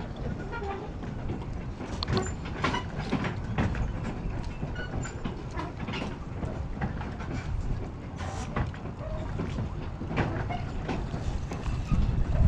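Spinning reel being cast and cranked: irregular clicks and ticks from the reel and line over a steady low rumble.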